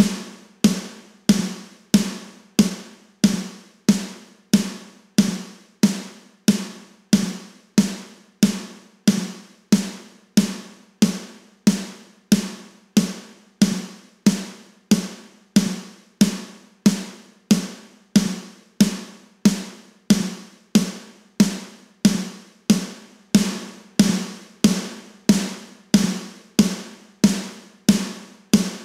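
A recorded snare drum track playing solo in a steady loop of single hits, about three every two seconds, each one ringing out before the next. It is played back while a Distressor-style compressor plugin, the Kiive Audio Xtressor, is being dialed in on it.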